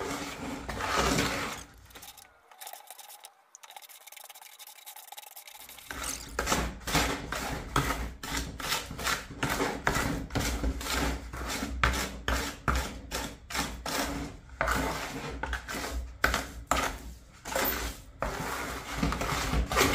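A wet mix of white cement and marble dust being stirred by hand, the tool scraping and rubbing through the paste in repeated strokes about twice a second. It is quiet for a few seconds early on, then the stirring runs steadily from about six seconds in.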